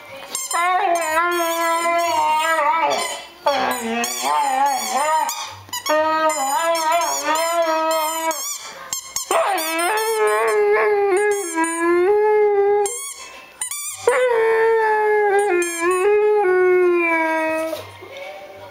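A dog howling and moaning in long, wavering, drawn-out calls, five or six in a row with short breaks between them: a dog's 'talking'.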